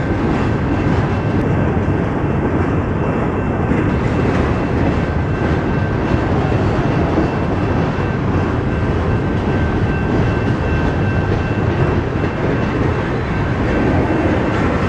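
Freight train cars (double-stack container cars, a covered hopper and centerbeam lumber flatcars) rolling steadily past close by: a continuous rumble of wheels on rail, with a thin steady high tone above it.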